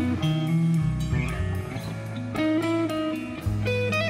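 Instrumental guitar music: a melodic electric guitar lead over strummed guitar, with held notes changing pitch every half second or so.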